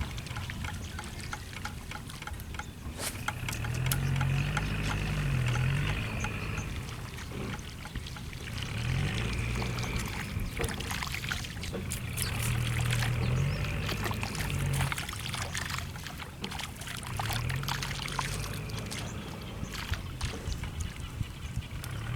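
Water pouring and trickling, with many scattered sharp clicks over a low hum that shifts in pitch every few seconds.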